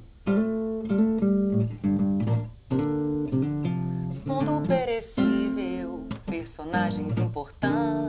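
Acoustic guitar played with the fingers, plucked chords in short phrases with notes ringing and then stopping, as the introduction to a song.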